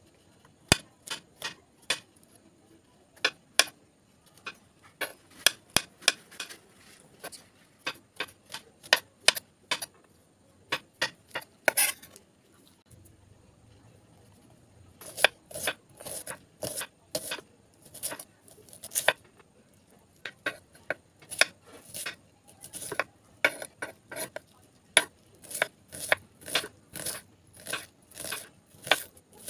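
Kitchen knife slicing button mushrooms on a stone countertop: sharp clicks of the blade striking the stone at an uneven pace. The clicks stop for a few seconds in the middle, then resume.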